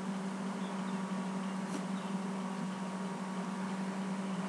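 Steady low hum with an even background hiss: room tone with no other distinct sound.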